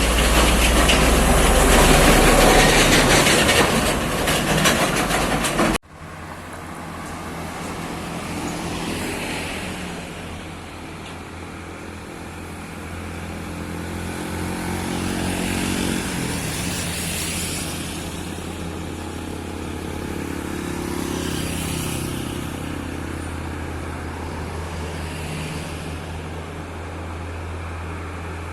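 Heavy diesel trucks working under load, engine notes swelling and fading several times as trucks pass. The sound is loud and dense until it cuts off abruptly about six seconds in.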